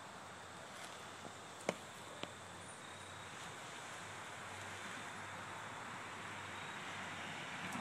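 Quiet outdoor ambience, a steady hiss with faint high thin tones, broken by two sharp clicks about half a second apart, a little under two seconds in.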